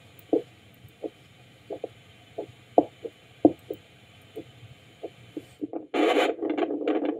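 Parks 811-B ultrasonic Doppler flow detector's speaker sounding a dog's arterial pulse as rhythmic whooshes, about one and a half a second, some doubled, while the blood pressure cuff is let down to find systolic pressure. About six seconds in, the whooshing turns much louder and more continuous.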